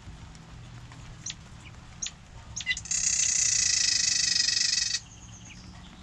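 Small songbirds calling: a few short, high chirps, then a loud, steady trill of about two seconds that stops abruptly.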